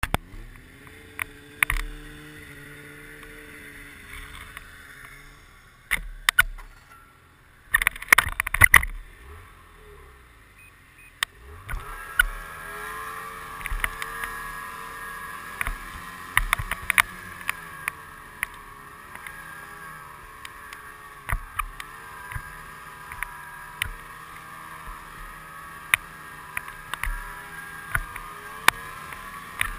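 Snowmobile engine running while riding over a bumpy snow trail, its pitch wavering up and down with the throttle. Frequent sharp clicks and knocks come from the machine jolting over bumps, with a cluster of loud jolts around 6 and 8–9 seconds. The engine gets louder and steadier about 12 seconds in.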